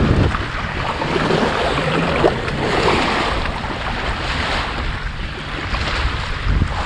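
Wind buffeting the microphone with a choppy low rumble, over small waves lapping at a sandy shore.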